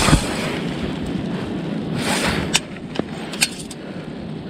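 Wind rushing on the microphone, with a knock at the start and a few sharp handling clicks about two and a half to three and a half seconds in.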